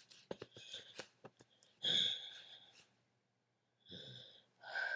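A few quick clicks, then three breathy vocal sounds: the first and loudest about two seconds in, two shorter ones near the end.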